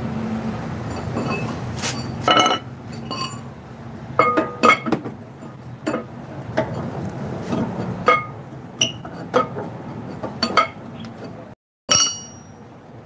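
Metal clinking at a truck's brake drum and wheel hub: an irregular string of sharp clinks and taps, some with a short ring, as steel parts and tools are handled while the drum brake is being removed.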